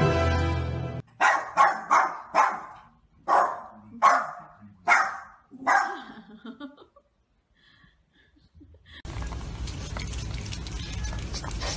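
Small dog barking, eight short sharp barks in quick succession, then stopping. From about nine seconds, a steady hiss with scattered small clicks.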